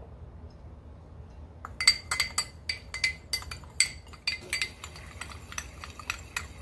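A metal spoon stirring oil in a small glass bowl, clinking quickly and irregularly against the glass. The clinks start about two seconds in.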